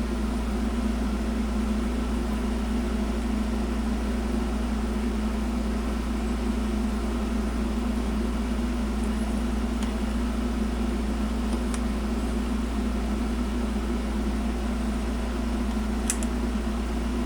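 A steady low mechanical hum that stays unchanged throughout, with a couple of faint clicks in the last third.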